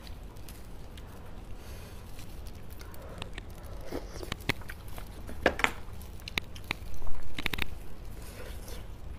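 Close-miked eating sounds of soft roasted beef bone marrow: a run of wet clicks and mouth noises, sparse at first and loudest about seven seconds in.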